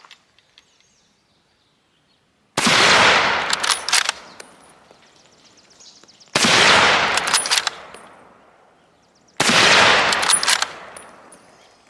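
M1903A3 Springfield bolt-action rifle in .30-06 firing three single shots a few seconds apart, each crack followed by a ringing echo that dies away over a second or two.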